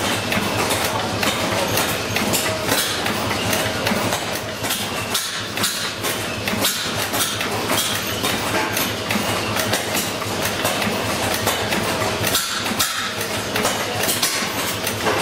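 A National Gas Engine Co. stationary engine running steadily, with a dense, continuous clatter of mechanical knocks over a low running note.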